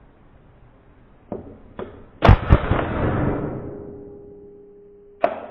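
Hatsan Blitz .22 PCP air rifle firing a two-shot burst on full auto: two sharp, loud shots about a quarter-second apart, followed by a rush of noise that fades over about two seconds. A few lighter clicks come before the shots, and another sharp click comes near the end.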